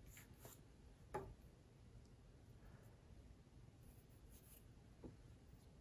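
Near silence, with a few faint clicks and scrapes of a small kitchen knife paring slices off a raw potato; the clearest comes about a second in.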